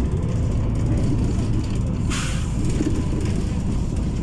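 Steady low rumble of a city bus's engine and road noise heard from inside the cabin, with a short hiss of air from the air brakes about two seconds in.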